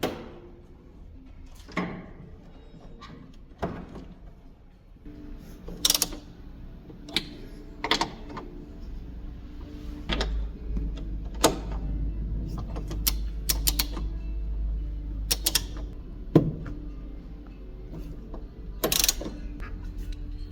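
Scattered clicks and knocks of tools and suspension parts being handled during a front shock absorber replacement, over background music.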